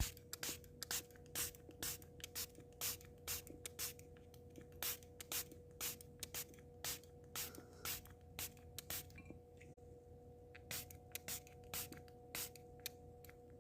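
Short dry scratching clicks, irregular at about two or three a second, over a faint steady hum.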